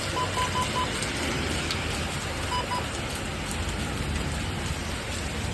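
Steady thunderstorm rain falling. A few short beeps sound over it, four near the start and two about halfway through.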